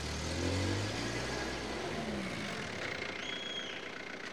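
Street traffic: a motor vehicle's engine running past, its note rising and falling over the first two seconds, over a steady low rumble.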